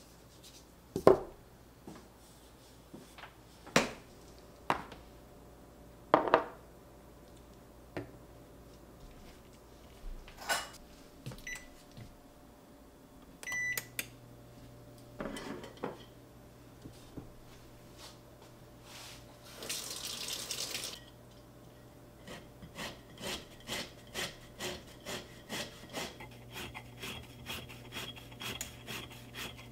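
Kitchen work sounds: dishes and utensils knock and clink at intervals, a short electronic beep about halfway through is followed by a steady low hum, and a brief burst of running water comes a few seconds later. Near the end there is a quick run of light clinks.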